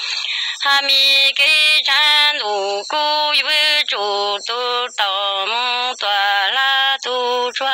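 A solo voice singing Hmong kwv txhiaj, traditional sung poetry, in short held notes that often slide down at the end of a phrase, with no accompaniment.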